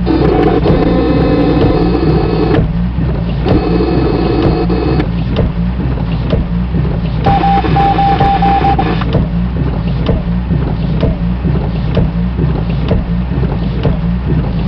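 Radio scanner audio: a steady low electrical hum with stretches of buzzy, unintelligible radio noise, and a short run of rapid beeps about seven seconds in.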